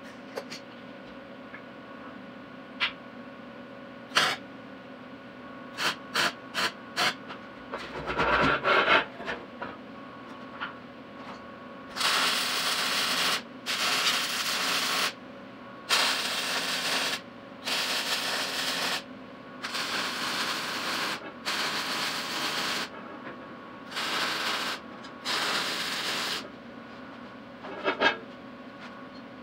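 MIG welding on steel: about eight short welds of a second or so each with brief pauses between, starting about twelve seconds in and running for some fifteen seconds. Before them come a few scattered clicks and a louder clatter, and a steady machine hum runs underneath.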